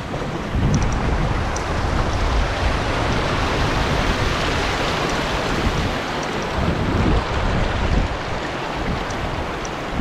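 Steady rush of a waterfall's falling water, with wind gusting on the microphone in low uneven rumbles from about half a second in.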